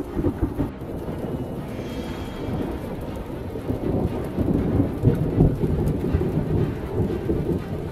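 Thunder rumbling and rolling through a heavy thunderstorm, swelling to its loudest a little past the middle, with rain falling throughout.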